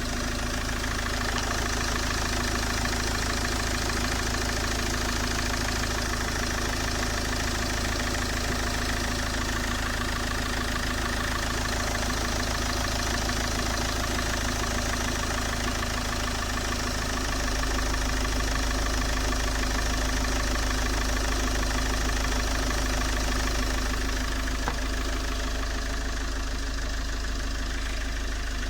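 Peugeot 807 HDi diesel engine idling steadily, a little louder in the low end from about two-thirds of the way through.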